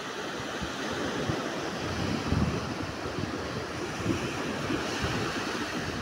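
Small sea waves washing up on a sandy beach: a steady hiss of surf and foam. Light wind bumps on the microphone add low rumbles a couple of times.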